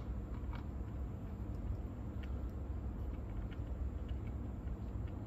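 Steady low hum of a Nakamichi 680ZX cassette deck's tape transport running in play, with a few faint light clicks of handling.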